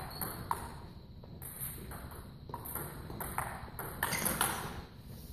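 A table tennis rally: the celluloid/plastic ball ticks sharply off rackets and the table at irregular intervals of roughly half a second. About four seconds in, a louder, noisier scuff-like sound comes as a player lunges.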